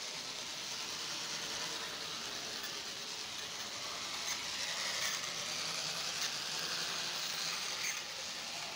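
Model train running along the layout track: a steady whir from the locomotive's small electric motor and its wheels on the rails, with a few light clicks about halfway through and near the end.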